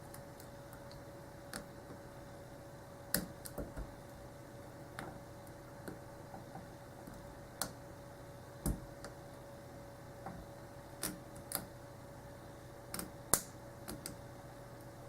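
Scattered, irregular small clicks and ticks of a hook pick working the pin stack of an Abus 34/55 padlock under tension, the sound of single-pin picking; two clicks, about three seconds in and near the end, are louder than the rest. A faint steady hum underlies them.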